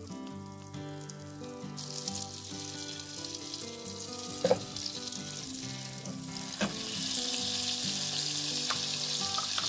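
Butter sizzling as it melts into hot olive oil in a small saucepan. The sizzle starts about two seconds in and grows louder near the end. A metal spoon knocks twice against the pan midway.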